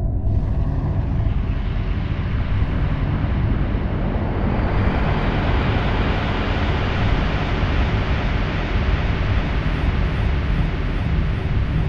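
Dark ambient drone music: a dense, steady low rumble under a rushing hiss of noise that swells in over the first few seconds.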